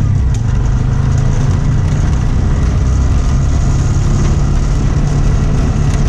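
Three-wheeled mototaxi's engine running steadily as it drives along a dirt road, heard from inside the cab, with road noise.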